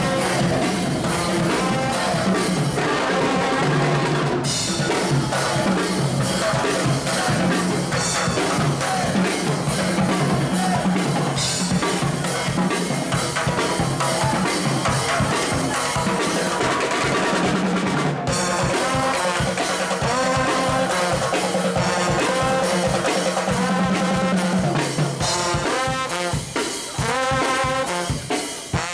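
Street brass band playing: a drum kit keeps a busy beat with snare and bass drum under trombones and a low bass line.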